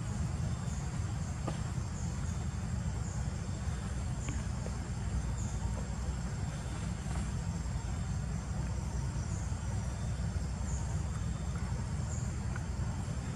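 Outdoor woodland ambience: a steady low rumble with insects chirping, a thin high drone and short high chirps repeating about once a second.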